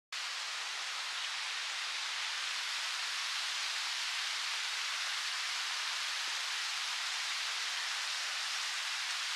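Steady rush of falling water from a waterfall, an even hiss that cuts in suddenly at the start and holds constant.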